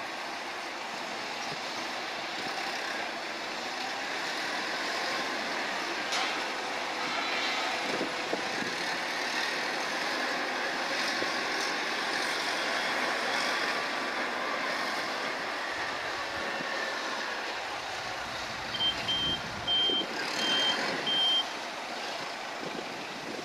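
Steady running of heavy cargo-handling machinery, with a reversing alarm giving about five short, even beeps near the end.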